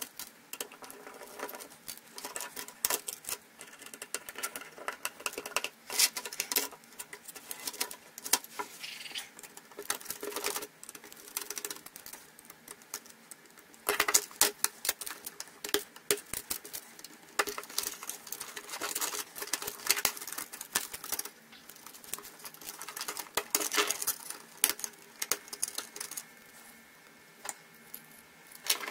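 Hands dismantling a slim laptop optical drive on a wooden bench: a small screwdriver turning its screws, and the thin sheet-metal cover and parts being lifted and set down. The result is a steady stream of irregular small clicks, taps and scrapes.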